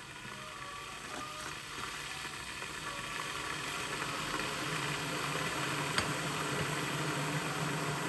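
Kettle heating water: a hissing rumble that grows steadily louder, with a single sharp click about six seconds in.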